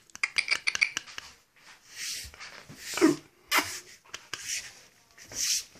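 German shepherd puppy moving across a laminate floor: a quick run of clicks in the first second, then scattered clicks and several short breathy noises.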